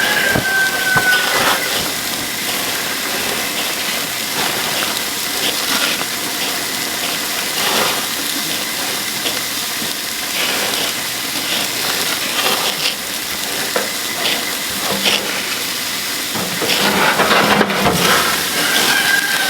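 Pork chops and dripping grease sizzling and crackling on a grill, with grease flaring up in flames: the drip pan has caught fire.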